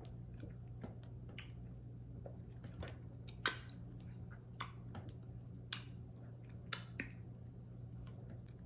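A person eating cornmeal fufu with okra soup, close to the microphone: scattered wet mouth smacks and clicks of chewing, three of them louder, over a faint steady low hum.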